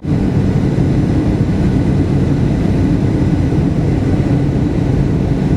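Steady drone of a jet airliner's engines and airflow heard inside the cabin, strongest in the low range, without change.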